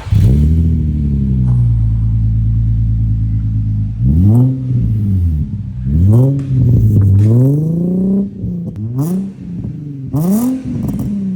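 Nissan 350Z's VQ35DE V6 through a newly fitted ISR Performance test-pipe, Y-pipe and cat-back exhaust. It comes up sharply at the start, holds steady for a few seconds, then is revved in about four blips that sweep up and drop back each time.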